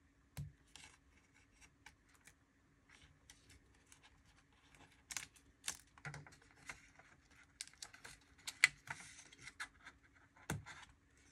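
Small, irregular clicks and scratches of fingers unclipping ribbon-cable connectors and their plastic latches in a Dell Latitude E7450 laptop's battery bay.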